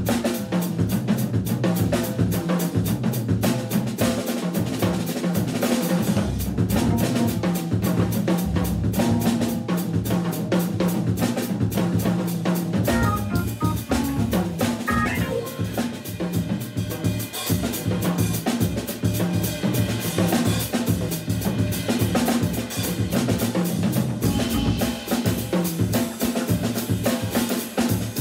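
Live organ trio playing a funk tune: drum kit to the fore, over the sustained bass line and chords of a Hammond B3 organ and an electric guitar.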